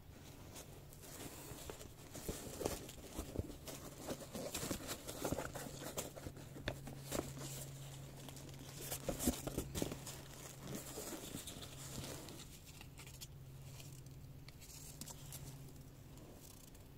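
Close handling noise of a canvas bucket hat and its paper tags: rustling and crinkling with many small clicks and knocks, busiest in the middle and dying down near the end, over a steady low hum.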